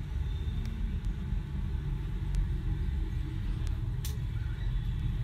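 Steady low background rumble, with a few faint clicks as the juicer's small motor, plastic gear housing and a screwdriver are handled.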